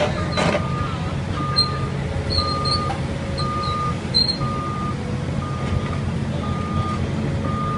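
Reversing alarm on heavy demolition machinery, beeping at one steady pitch about once a second, over the steady running of a diesel engine.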